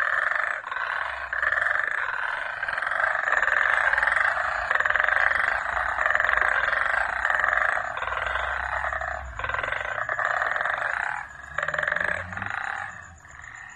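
A dense chorus of many frogs calling together in a continuous mass, with a thin high chirp repeating evenly, about twice a second, above it. The chorus dips briefly a few times in the second half and fades away near the end.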